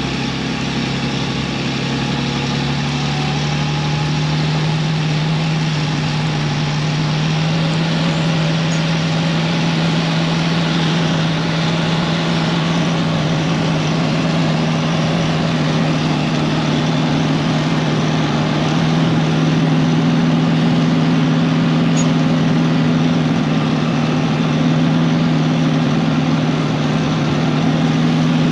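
Diesel engine of a Bell 4206D tractor pulling a Soilmax tile plow, running steadily under load. Its pitch rises a little in the first few seconds as it picks up speed, and it grows slightly louder in the second half.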